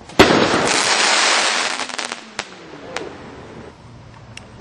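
Consumer firework going off: one sharp bang, then about two seconds of loud hiss with scattered cracks that fades into a few isolated pops.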